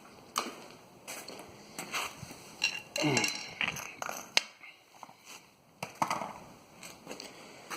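Hand tools clinking and knocking as they are picked up, moved and set down: a string of separate metallic clicks and clunks.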